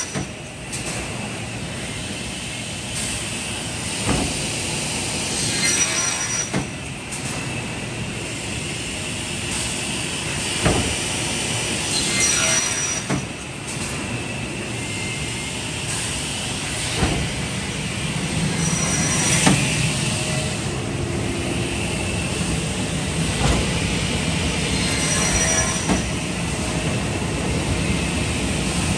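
Holzma HPP 350 beam saw cutting plywood: steady machine noise from the saw and its extraction. A knock and a brief high whine recur about every six and a half seconds as it works through its cuts.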